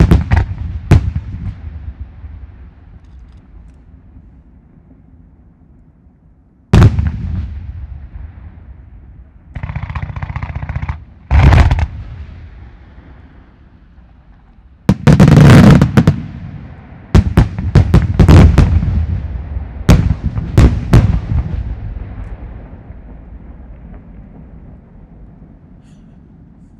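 Aerial firework shells bursting with sharp booms, each followed by a long rolling echo. There are two bangs at the start, one about seven seconds in, one just after eleven seconds, and a rapid cluster of bangs from about fifteen to twenty-one seconds in that fades into rumbling echo.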